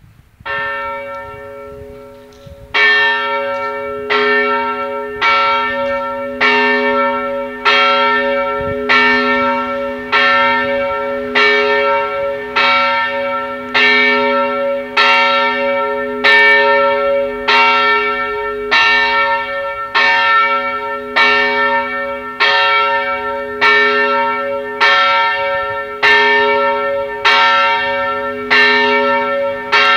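Church bell ringing steadily, about one stroke every second and a quarter. Each stroke rings on into the next, so a low hum carries on underneath.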